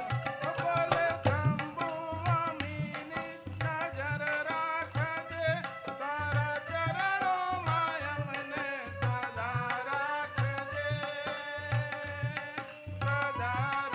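Live Gujarati devotional bhajan music: a dholak and tabla keep a steady repeating beat under a gliding keyboard melody.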